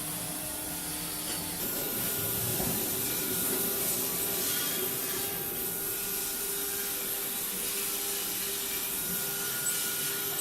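Woodworking CNC router with automatic loading and unloading running steadily: a wood-machining whir with a high whine and a lower hum that come in about two seconds in.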